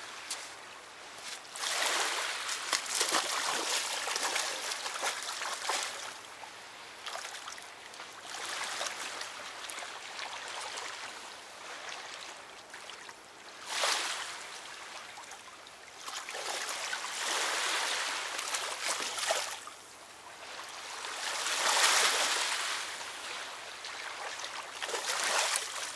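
River water running and lapping at the bank: a hiss of moving water that swells and fades every few seconds.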